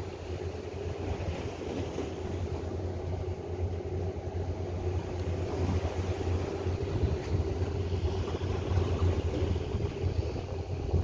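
Steady low engine hum with a constant drone underneath, over a background hiss.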